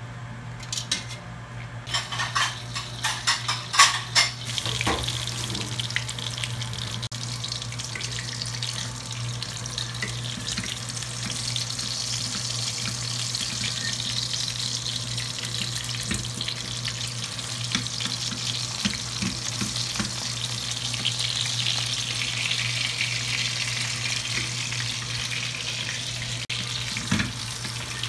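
Salmon steak sizzling in oil in a frying pan, a steady high hiss, with a few sharp knocks of cookware about two to five seconds in. A steady low hum runs underneath.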